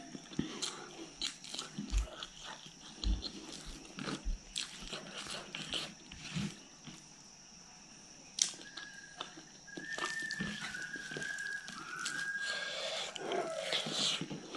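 Close-miked wet eating sounds: lip-smacking, chewing and finger-licking of a person eating rice and fish curry by hand, with many small sharp smacks. From a little past halfway, a faint high whine of a few held notes stepping down in pitch runs under the eating.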